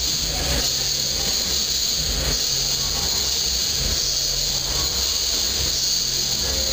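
Steady background hiss with a low hum underneath, even throughout, with no distinct event standing out.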